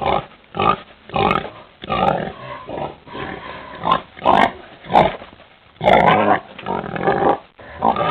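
Pig grunting and oinking over and over: about a dozen short, irregularly spaced grunts, a few of them longer and louder.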